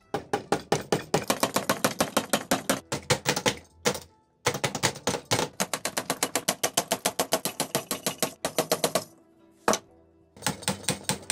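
Rapid, regular hard clicking, about seven clicks a second, in runs broken by short pauses.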